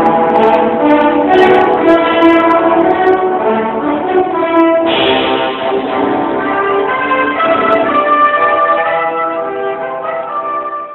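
Symphonic wind band playing a full passage of held chords, with brass instruments to the fore; it softens in the last second or two.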